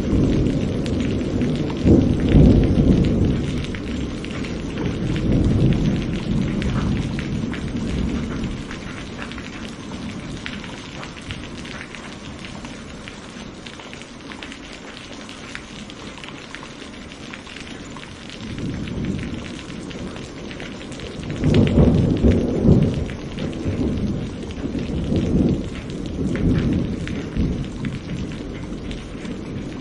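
Steady rain with two long rolls of low rumbling thunder: one over the first several seconds, and another starting about two-thirds of the way through.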